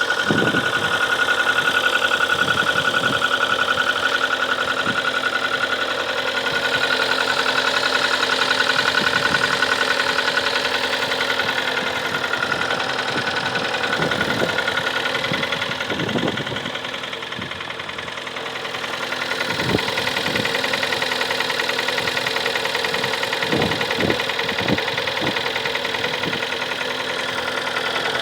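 Kia Sportage 3's G4KD 2.0-litre four-cylinder petrol engine idling with a fast, even knock running through the idle, the knock the owner is recording as a fault.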